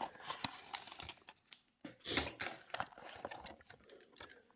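Light clicks and rustling of plastic packaging and a small diecast model car being handled, with a louder rustle about two seconds in.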